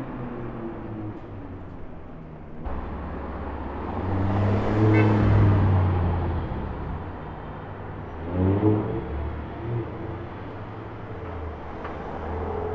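Supercar engine and exhaust running in street traffic. It swells louder about four to six seconds in, and there is a short rising rev at about eight and a half seconds as a car accelerates.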